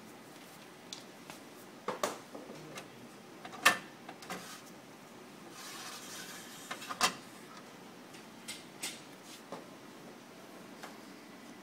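Clicks and knocks of parts being turned, unlatched and handled inside an opened printer's drum assembly. The loudest knock comes a little under four seconds in and another about seven seconds in, with a short scraping slide just before the second.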